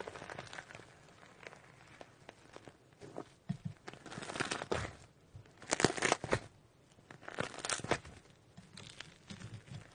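Fluffy slime being squeezed and stretched by hand: irregular soft crackling, squishing and small popping clicks, with the loudest bursts a little past halfway and again near the end.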